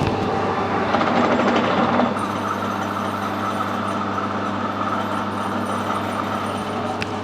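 Metal lathe running steadily with its motor hum and a faint whine, with a louder, rougher scraping noise of work on the spinning brass for about the first two seconds.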